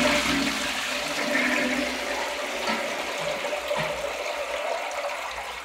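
Newly fitted ceramic toilet flushing: a loud rush of water swirling through the bowl, starting suddenly and slowly tapering off near the end. The toilet is flushing properly.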